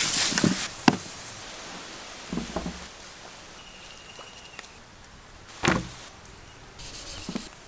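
Hands mixing and shaping a mashed fish and potato cutlet mixture: a hissing, crackling rustle at the start, then scattered soft pats and one louder thump a little before the end.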